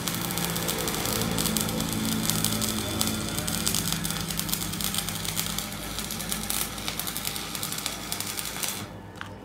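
Stick (shielded metal arc) welding on steel: the arc crackles and sizzles steadily over a low hum, then stops abruptly near the end as the arc is broken.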